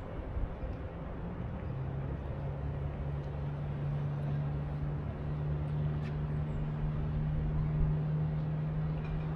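A vehicle engine running with a steady low hum that comes in about two seconds in and slowly grows louder, over steady background noise.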